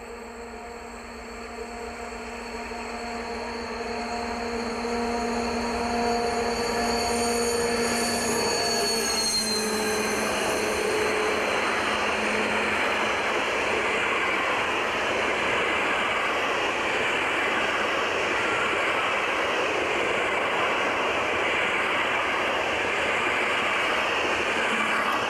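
Diesel locomotive hauling a passenger train approaches, its engine drone growing louder, and the pitch falls as it passes about ten seconds in. The coaches then roll past in a steady rush of wheels on rails.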